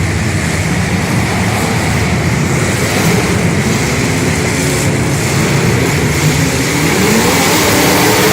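Demolition derby car engines running loudly, with one engine revving up in a rising note near the end.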